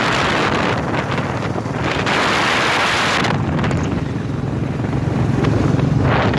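Wind buffeting the microphone of a phone held out on a moving Royal Enfield Bullet motorcycle, rising and falling, over the low running of the bike's single-cylinder engine.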